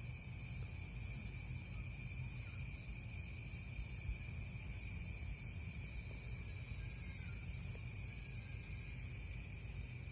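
Steady chorus of night insects, several high continuous trills at once, over a low rumble, with a faint click about eight seconds in.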